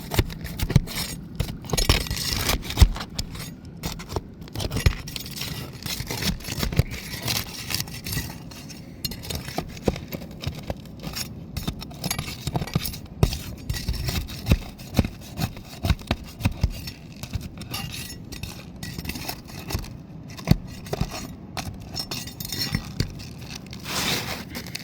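Flat pry bar scraping and clicking under asphalt roof shingles, working them loose and prying out nails, in an irregular run of scrapes and sharp knocks.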